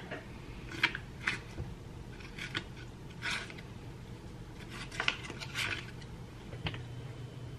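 Kitchen counter handling sounds: scattered light clinks and short rustles of utensils and food wrapping, over a low steady hum. A faint steady high tone comes in near the end.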